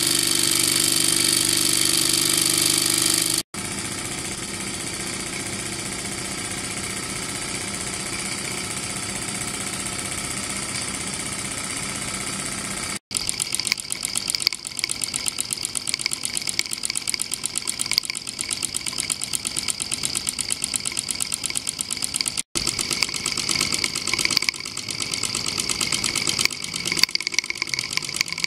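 Mamod Centurion toy steam traction engine running on live steam: a steady hiss for the first part, then from about halfway a rapid, even clatter of the double-acting piston-valve engine chuffing and ticking at speed.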